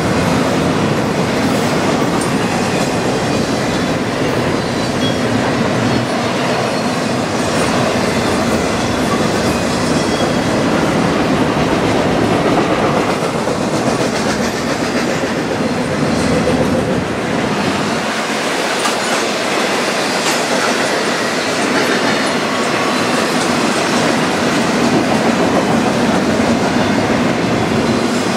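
Double-stack intermodal container train rolling past: the steady, loud running noise of the well cars' steel wheels on the rails. The deepest part of the rumble drops away about two-thirds of the way through.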